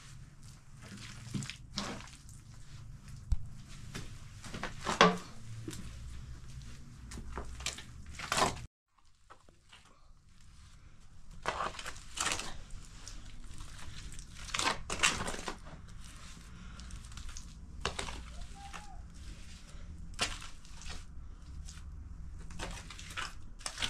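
Irregular scraping and crunching strokes, one every second or two, over a steady low background rumble. The sound drops out briefly about nine seconds in.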